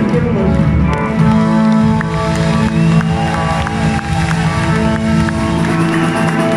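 Live band playing an amplified number on electric guitars and drum kit, with steady sustained chords and drum hits, heard through the concert hall's PA.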